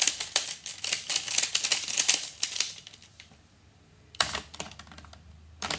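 Plastic Pyraminx (triangle puzzle) being twisted by hand: a rapid run of plastic clicks for about two and a half seconds, then two single knocks.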